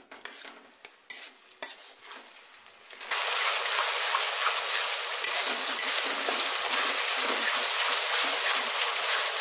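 A metal spatula scrapes and stirs watery onion-tomato masala paste in a kadai, with a few light scrapes at first. About three seconds in, a loud, steady sizzle of the masala frying over turned-up gas sets in and carries on under the stirring.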